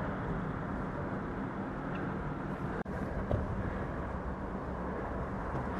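An engine running steadily under outdoor noise, with the sound cutting out for an instant near the middle.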